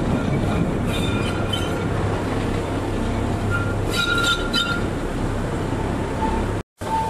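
Electric rack-railway train running, heard from on board: a steady low rumble with a high wheel squeal about four seconds in. The sound cuts out for a moment near the end.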